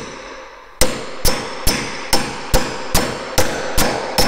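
Hammer blows on the top of a steel square hollow mortising chisel, driving it into a hardwood stair tread to square a drilled round hole into a baluster mortise. About nine sharp, ringing strikes come at an even pace of roughly two a second.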